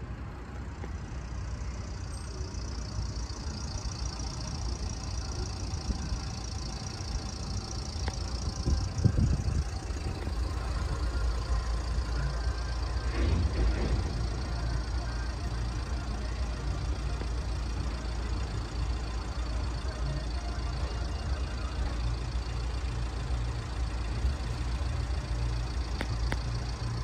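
Road vehicles' diesel engines idling steadily with a low rumble while the barriers are down. From about a second in there is also a steady high-pitched warbling tone.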